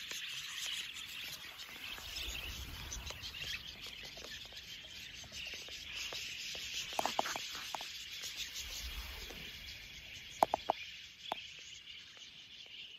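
A huge flock of birds chattering, a dense continuous twittering of countless small calls, with a few louder close chirps about seven seconds in and three quick sharp ones about ten seconds in.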